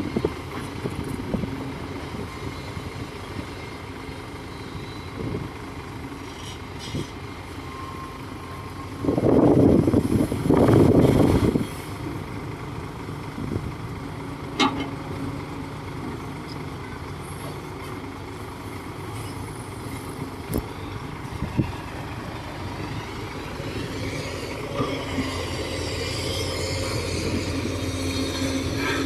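Diesel bulldozer engine running steadily, with two louder surges about a third of the way in. A high, wavering metallic squeal, typical of steel crawler tracks, comes in near the end.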